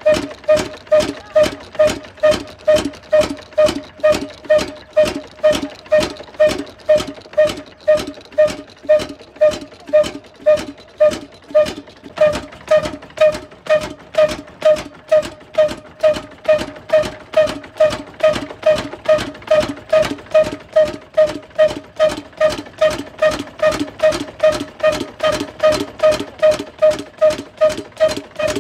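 Old 16 hp diesel engine running slowly and steadily, a regular beat about twice a second with a ringing tone on each stroke.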